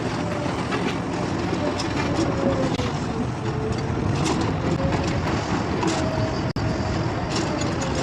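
Heavy machinery engine running steadily, with a wavering whine under the engine noise. The sound drops out for an instant about six and a half seconds in.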